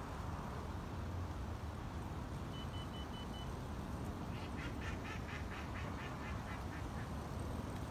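A steady outdoor rush of wind and weather. About two and a half seconds in there are four short, high beeps at one pitch. From about four seconds in, a bird gives a rapid run of about a dozen short quacking calls.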